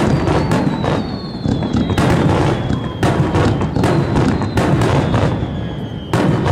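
Dense finale barrage of aerial firework shells bursting: rapid overlapping booms and crackles over a continuous low rumble, with thin high whistles sliding slowly down in pitch.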